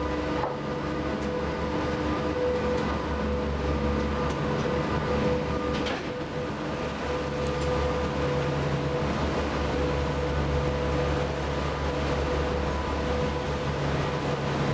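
Steady drone of the M/S Söderarm passenger boat's engines and machinery while under way: a low hum with a steady higher tone running through it.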